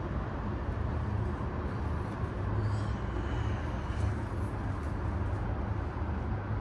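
Steady low rumble of distant city traffic ambience, with a few faint, brief high chirps near the middle.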